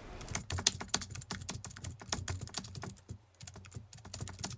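Computer keyboard typing, a rapid, uneven run of key clicks, used as the sound effect for on-screen text being typed out.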